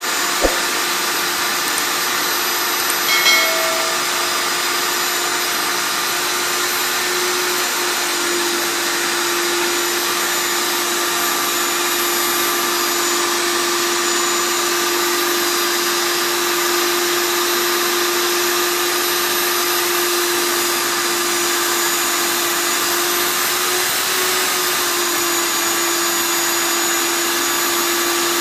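Stand-mounted electric diamond core drill running steadily with a constant motor whine and hum, its water-cooled core bit cutting into a concrete floor as the feed handle is turned.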